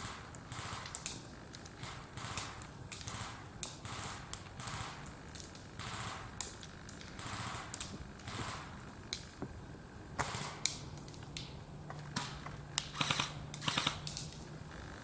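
Airsoft guns firing: sharp cracking shots, singly and in short strings, with a rapid burst about two-thirds of the way through.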